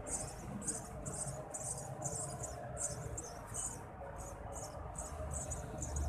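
Eurasian tree sparrow nestlings begging in the nest: a rapid run of thin, high-pitched cheeps, about three a second, as the parent comes to feed them.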